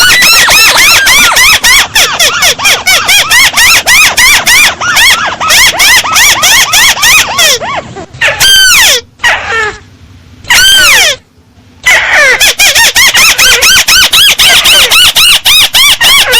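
Paddy-field crake calling: a fast, loud run of arched squeaky notes, several a second, broken by two short pauses a little past the middle.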